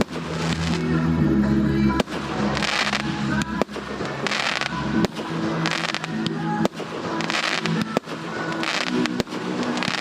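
Fireworks display with music playing throughout: a sharp shell burst about every one and a half seconds, with hissing and crackling from the effects between the bursts.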